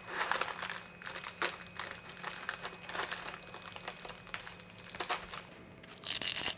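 Crispy fried-chicken crust crackling and crunching as it is bitten and chewed, in irregular crisp crackles with a dense burst of crunching near the end.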